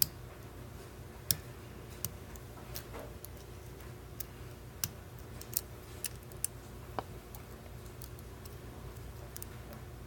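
Lock pick and tension wrench working the serrated driver pins of a Schlage padlock: irregular small metallic clicks, about a dozen, as pins are lifted and set under tension.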